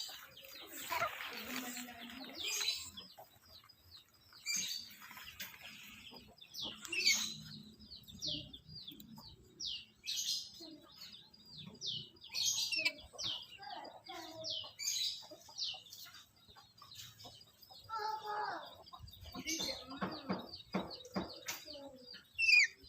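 Black-capped lory giving many short, high-pitched chirps one after another, with a few lower, harsher calls and a quick run of clicking chatter near the end.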